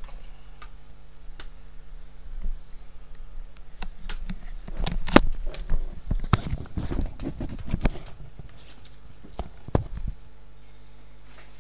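Handling noise at close range: clothing brushing against the microphone and a run of irregular knocks and thumps, thickest in the middle few seconds, over a steady electrical hum.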